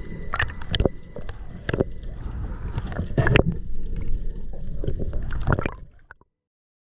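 Water sloshing and gurgling with scattered knocks over a low rumble, fading out near the end.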